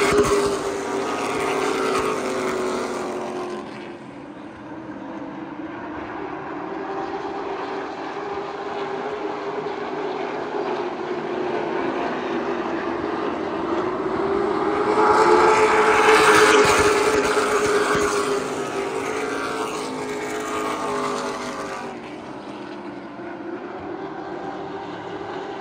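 A pack of short-track stock cars racing around a paved oval, engines loud as the field passes close by at the start, then fading as the cars go into the far turns. The engines swell again to a second close pass a little past the middle and fade once more toward the end.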